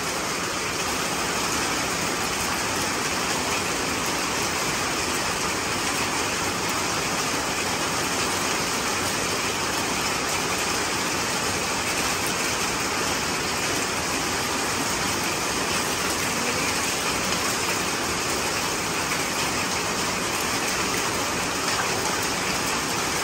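Heavy rain falling on wet concrete and puddles: a steady, even hiss of water with no breaks.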